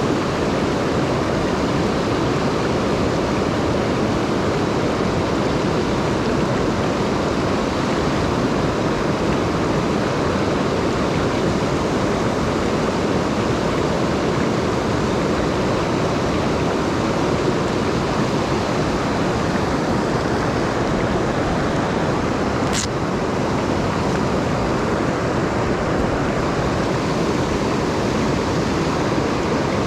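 Swollen mountain stream rushing steadily, its water running high after rain. A single brief click sounds about three-quarters of the way through.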